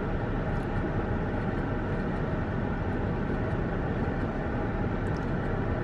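Steady hum and hiss of a car's interior with the car running, unchanging throughout.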